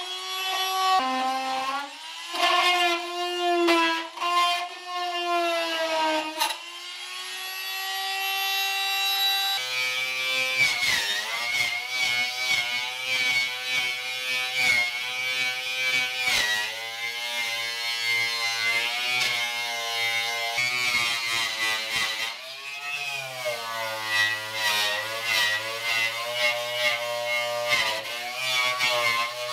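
An oscillating multi-tool buzzing as it scrapes old sound deadening off a car's steel floor pan, its pitch shifting as it bites. About ten seconds in it gives way to an angle grinder with a stripping disc whining across the bare floor, its pitch sagging each time it is pressed in.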